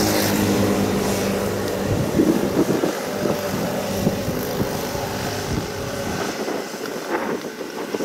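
Kubota DC70 combine harvester running: a steady engine drone for about the first two seconds, then a rougher mechanical noise with many short, irregular knocks and rattles that eases off a little near the end.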